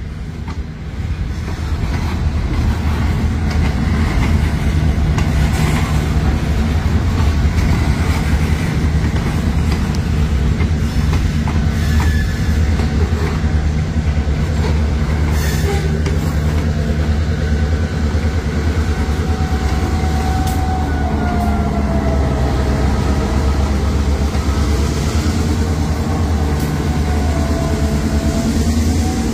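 A freight train passing slowly at close range, its railcars and then its EMD GP38-series diesel locomotives going by. The two-stroke V16 engine runs with a steady low drone throughout. A wavering wheel squeal comes in during the second half.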